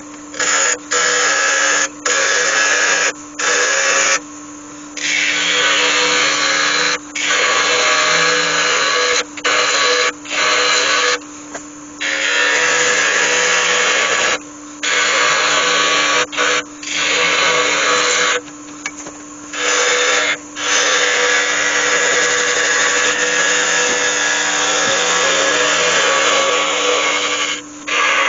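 Turning gouge cutting an oak lid spinning on a wood lathe, taking it down in size, in a run of cutting passes that start and stop every second or few. The lathe's steady hum runs underneath.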